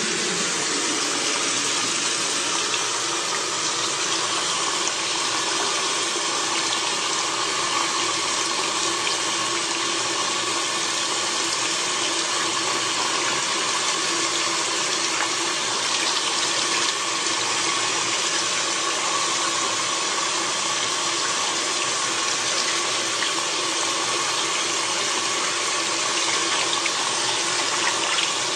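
Water running steadily from a tap, a constant even rush with no breaks.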